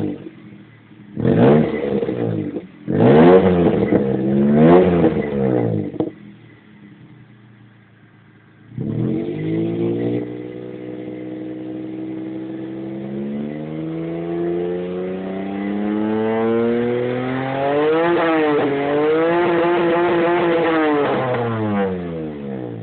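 Suzuki Swift 1.0's three-cylinder engine through an aftermarket sport exhaust, revved in a few short blips, then pulled up slowly over several seconds and held high before the revs drop near the end.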